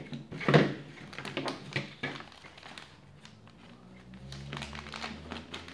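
Plastic packaging bag rustling and crinkling as a foam model-plane tail piece is cut free and pulled out. There is a knock about half a second in, and light clicks and taps on the table after it.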